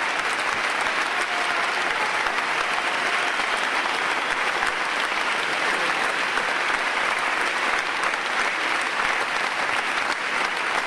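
Large audience applauding steadily, a dense, even wash of many hands clapping.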